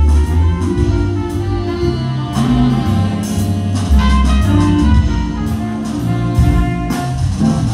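A live jazz band playing, with a saxophone leading over a low bass line, guitar and a drum kit with cymbals.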